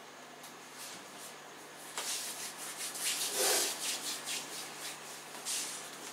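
Irregular rubbing and rustling from a person moving close to the microphone, in uneven strokes starting about two seconds in.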